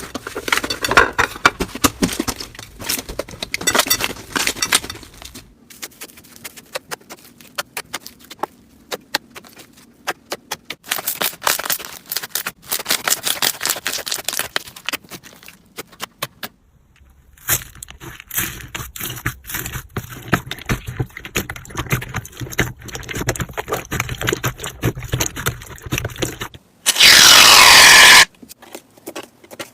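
Hands squeezing, poking and stretching slime, giving dense crackling with quick sharp pops, in several short takes. Near the end comes a brief, much louder rushing noise.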